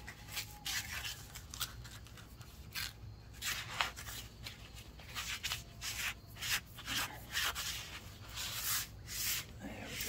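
220-grit sandpaper rubbed by hand along a cast lead fishing weight in quick, irregular strokes, about one or two a second. It is scuffing the bare lead so that a rubberized spray coating will have something to grip.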